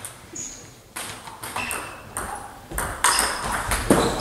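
Table tennis ball clicking against bat and table, several sharp pings at irregular spacing, echoing in a large sports hall.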